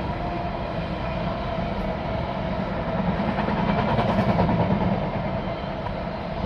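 Freight train hauled by a Class 66 diesel locomotive running past, its wagons rolling steadily along the track, a little louder around the middle.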